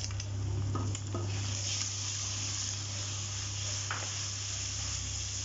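Mutton pieces and freshly added crushed garlic sizzling in hot oil in a nonstick kadai, with a steady hiss that grows louder about a second in. A few light strokes come from a wooden spatula stirring the pan, over a steady low hum.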